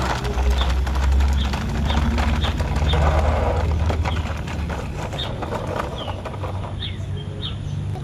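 Remote-control toy dump truck driving over dirt and pebbles: a low motor hum with crackling of grit under its tyres, the hum easing off about halfway through. Birds chirp repeatedly in short high notes.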